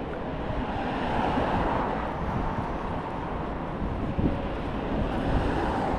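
City street ambience: a steady rumble of passing road traffic with a general outdoor hubbub.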